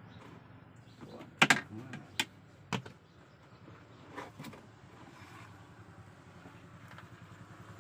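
Sharp plastic clicks and knocks as a car's cabin air filter housing behind the glove box is opened and the filter slid out, a few snaps in the first three seconds and a softer cluster a little later, over a steady low hum.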